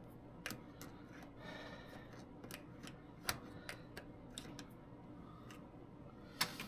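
Light, irregular clicks and taps of small metal parts being handled while lacing bicycle wheel spokes by hand.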